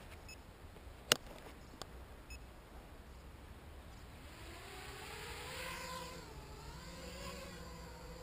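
HK 250 quadcopter's electric motors spinning up about halfway through and running with a whine whose pitch wavers up and down with the throttle. A sharp click comes about a second in.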